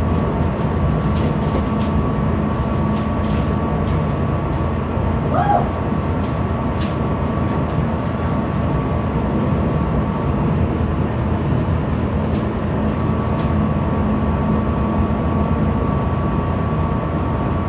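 Steady low rumble of a ship's engine running ahead, heard on board, with a faint steady whine over it and a few light clicks.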